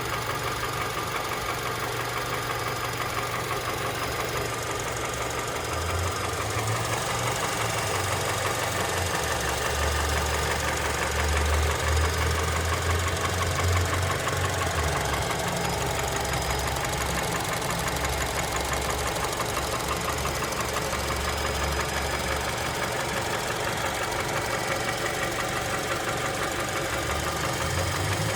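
Honda Element's K24 2.4-litre four-cylinder engine running with a knocking noise. Its low drone drops in pitch for much of the middle and rises again near the end.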